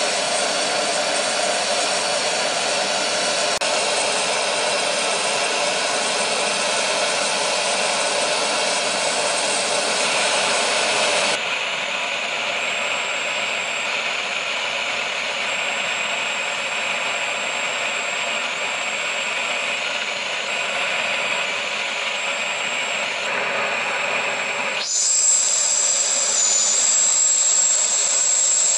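Turbine noise from a Dornier 328JET on the ramp: a steady jet rush and whine. The tone changes abruptly about 11 s and 25 s in, and after the second change a high steady whine comes in strongly.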